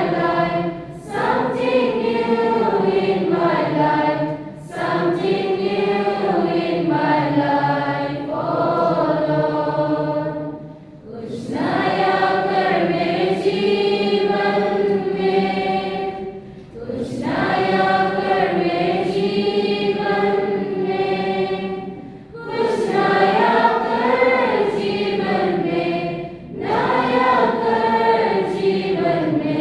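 A group of voices sings a slow hymn together in long, held phrases, with brief pauses for breath every few seconds.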